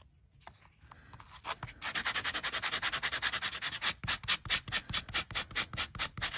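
A foam nail buff rubbed back and forth over alcohol-inked embossed metal tape, sanding the ink off the raised design. The quick rasping strokes start about two seconds in and keep up a fast, even rhythm.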